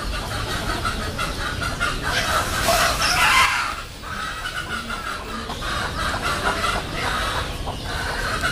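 Chickens clucking in quick, continuous short calls, with one louder, longer call about two to four seconds in.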